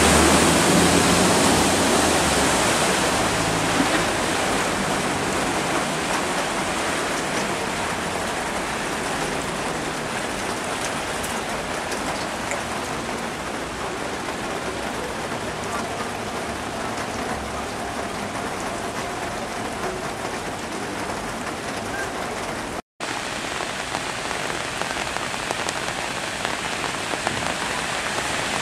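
Steady heavy rain falling on a flooded street. For the first few seconds an SUV churns through the deep water with a low rumble, and the sound cuts out briefly about three-quarters of the way through.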